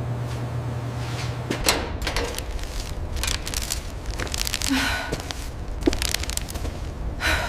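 A steady low hum that drops to a deeper rumble about a second and a half in, with scattered knocks, thuds and clicks over it.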